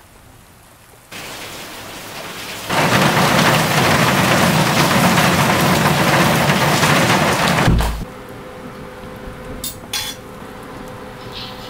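Heavy rain pouring down, a loud steady hiss that builds a little over a second in, swells about three seconds in and cuts off suddenly near eight seconds. After it come a few light clinks of dishes and cutlery.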